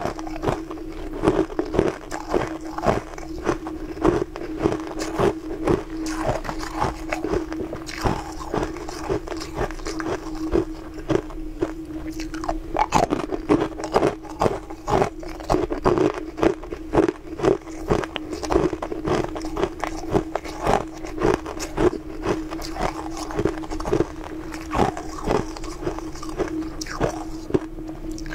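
Biting and chewing chunks of tinted ice: a dense, irregular run of sharp crunches over a steady low hum.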